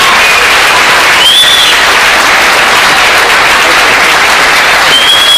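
Crowd applause: many people clapping steadily and loudly, with a few brief high-pitched tones above it.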